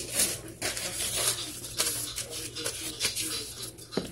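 Plastic bag rustling and crackling as it is handled close to the microphone, in quick irregular crackles.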